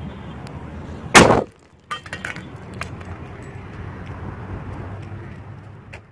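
A perfume aerosol can heated in a fire bursts with one loud bang about a second in, followed by a few scattered clicks.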